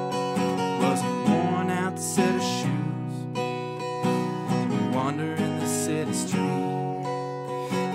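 Background music: a song carried by strummed acoustic guitar.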